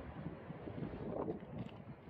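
Wind buffeting the microphone, a steady rumbling noise with gusty flutter.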